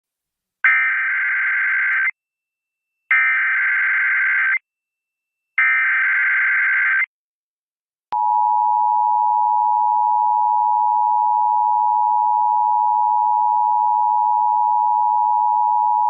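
Emergency Alert System alert tones: three identical bursts of shrill, buzzing data header, each about a second and a half long with short gaps between them. About eight seconds in, the steady two-tone attention signal starts and holds.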